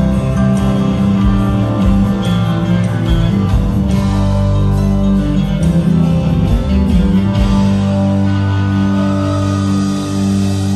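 Live rock band playing with electric guitars, bass and drums, heard loud from the crowd. About seven seconds in the drum hits stop while sustained guitar and bass notes keep ringing.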